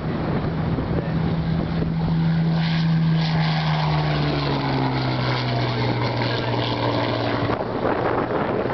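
Supermarine Spitfire Mk V's Rolls-Royce Merlin V12 engine running on takeoff as the fighter passes close and climbs away; its note drops in pitch as it goes by, about four seconds in, and fades near the end.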